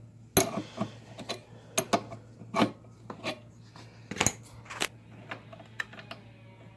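Adjustable wrench clicking and knocking against a metal quick-connect coupler as it is worked loose from an air compressor's outlet fitting: a string of irregular sharp metal clicks and clanks.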